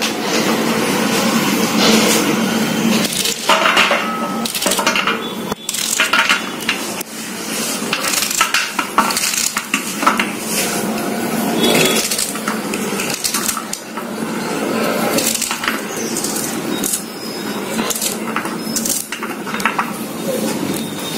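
A small knife cutting through fresh okra pods held in the hand, with the cut rounds dropping onto a stainless steel plate in irregular light clicks and taps.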